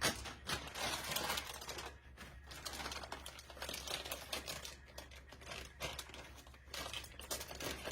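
Irregular clicks, taps and rustling as the packaging of a new black toner cartridge is handled and cut open by hand.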